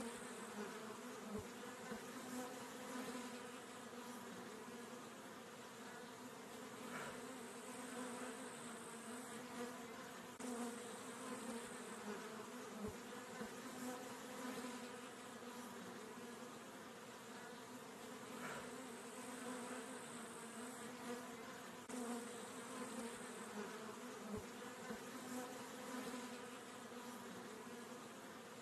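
Many honey bees buzzing together on comb, a steady, even hum of wingbeats.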